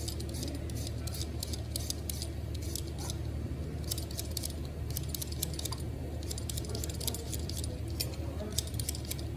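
Rapid, irregular light clicks and clinks over a steady low hum.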